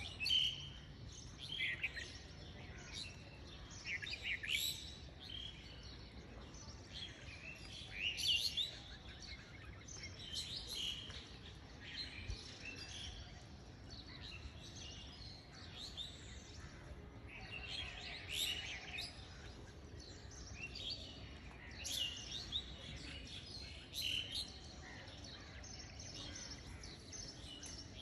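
Small birds chirping: short, high calls that come every second or two, some in quick runs, over a faint steady background hum.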